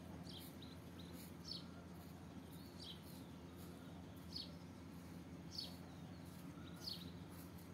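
A bird chirping faintly and repeatedly: short, high, falling chirps at irregular intervals of about a second, over a low steady hum.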